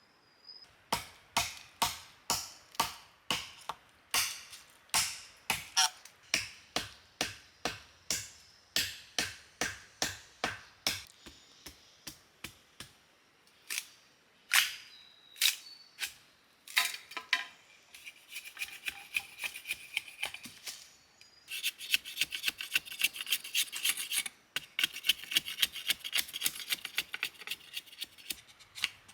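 Hand-tool work: sharp, evenly spaced chopping strikes, about two a second, for some ten seconds. After a few scattered strikes comes a run of rapid scraping or cutting strokes.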